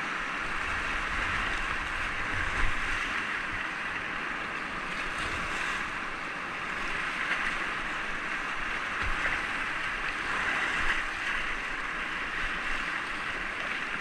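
Whitewater rapids rushing around a kayak running through them: a steady roar of fast, churning river water with a few louder splashes.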